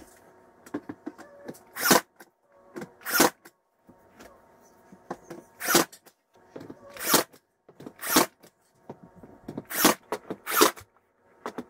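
Nail gun firing nails into baseboard trim, seven sharp shots spaced a second or two apart, with faint handling clicks between.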